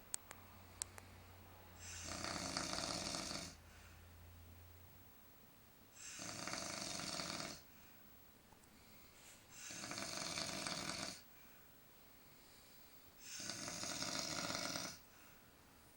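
A man snoring in his sleep: four long snores, each about a second and a half to two seconds, coming roughly every four seconds with quiet breaths between.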